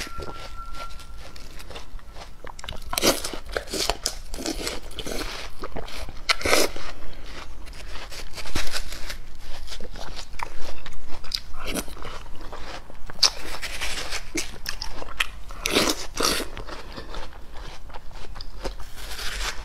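Close-miked eating of watermelon: a metal spoon digging and scooping into the melon's red flesh, with irregular crunching bites and chewing of the fruit.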